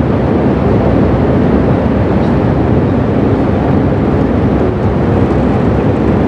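Steady, loud, low rumbling noise with no voice, even in level throughout.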